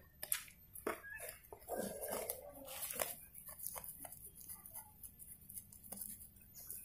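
Faint clicks and scrapes of a knife blade cutting slits into the bark of a mulberry bonsai's root base, with a denser scraping noise about two seconds in.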